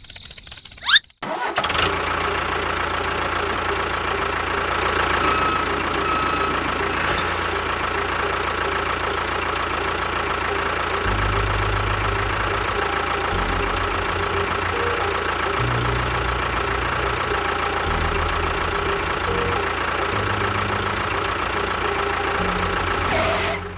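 A small machine's motor running steadily with an engine-like sound, starting abruptly after a sharp click about a second in. Its low hum shifts level in steps from about halfway through, and it stops just before the end.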